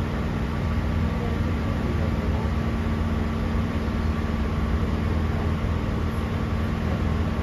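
Steady interior running noise of a Sydney Trains K set electric train: a low rumble with a steady hum over it, at an even level throughout.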